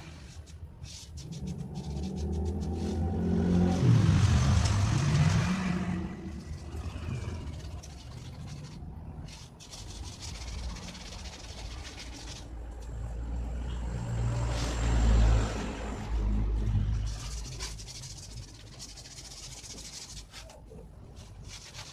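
Passing motor vehicles: one engine's pitch dips and then rises as it goes by about four seconds in, and a second low engine rumble swells and fades later on.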